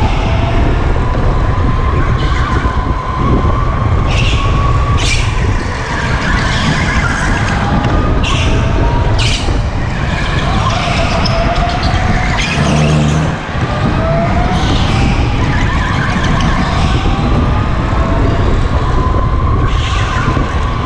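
Onboard sound of a go-kart at racing speed: a steady low rumble of wind and vibration on the kart-mounted microphone, with the kart's motor whine rising and falling in pitch as it accelerates out of corners and lifts into them. There are short noisy bursts now and then.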